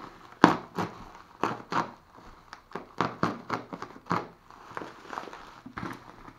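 Bubble wrap crinkling and crackling as hands pull and peel it off a long parcel, in a string of irregular sharp crackles, the loudest about half a second in.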